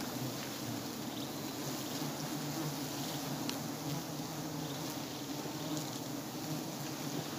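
Giant honey bees buzzing around their exposed comb: a steady, even hum.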